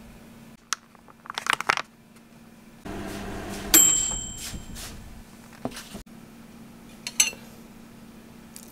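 Handling of a plastic ready-meal tray and its packaging. Crinkling plastic comes first, then a sharp metallic clink that rings on briefly about four seconds in. A few light taps follow near the end.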